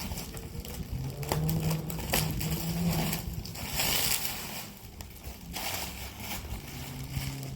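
Packaging being unwrapped by hand: irregular crinkling and rustling of wrapping with small crackles, loudest about three to four seconds in.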